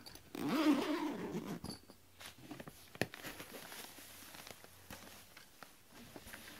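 A cat gives a long wavering meow. After it comes the handling of a padded instrument gig bag being opened, with a sharp click about three seconds in and soft rustling.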